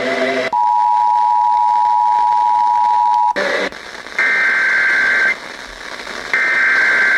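Emergency Alert System two-tone attention signal, a steady dual beep lasting about three seconds and cutting off. After a short noisy gap, two one-second bursts of the higher, buzzing SAME data header follow, a second apart.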